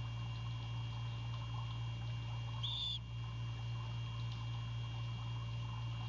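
Great horned owlet giving its high begging screech once, about three seconds in, with the next screech starting at the very end, over a steady low hum.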